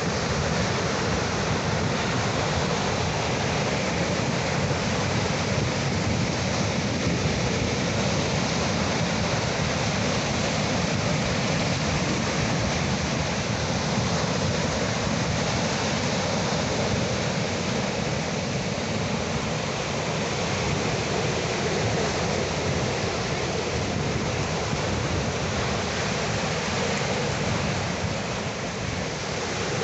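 Sea surf: a steady, even rush of water with no separate wave breaks standing out.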